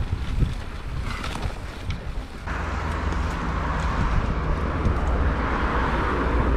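Wind buffeting the microphone of a camera riding along on a mountain bike, with rolling rumble and scattered clicks and rattles. About two and a half seconds in, a steady hiss comes in suddenly.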